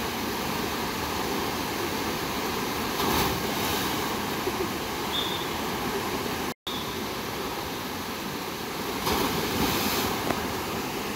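Steady rush of water pouring down a steep rock water slide into a pool, with two louder splashes, about three seconds in and again about nine seconds in, as sliders plunge into the pool. The sound cuts out for an instant about two-thirds of the way through.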